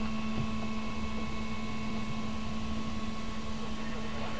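Steady drone of a Cessna 172's engine and propeller at taxi power, heard inside the cabin, with a constant low hum.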